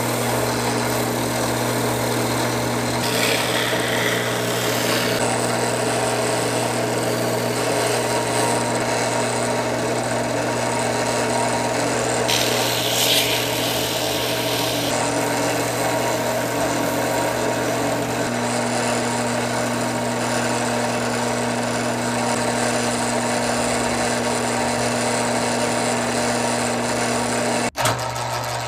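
Small electric power tool running steadily with a motor hum under an abrasive hiss, grinding or sanding parts of an old hand plane. The hiss grows harsher twice, and the sound drops out for an instant near the end before resuming.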